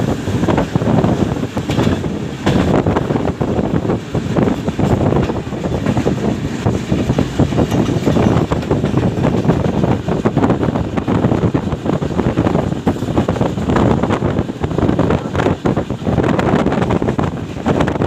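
Passenger train running along the line, a steady rumble of the wheels on the rails, with wind buffeting the microphone.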